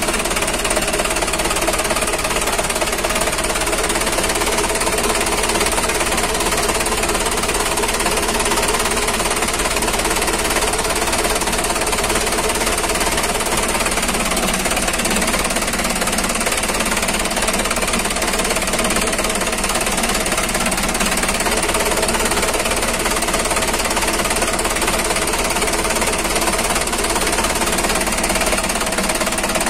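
Mitsubishi Ragasa truck's diesel engine idling steadily with the engine bay open.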